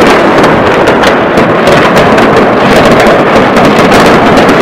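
Citywide New Year's fireworks: a loud, unbroken barrage of salvo bangs, booms and crackling from many fireworks and firecrackers going off at once, with no gap between the reports.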